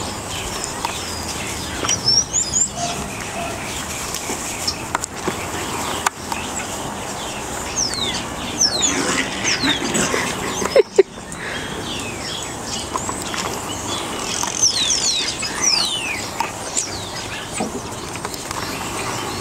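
Small birds chirping in short high sweeps, off and on, over a steady outdoor hiss. A single sharp loud knock comes just before the middle.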